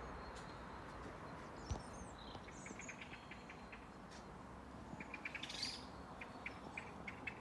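Birds chirping and calling, with a loud high call about five and a half seconds in and a run of short, high ticks, several a second, from about five seconds on.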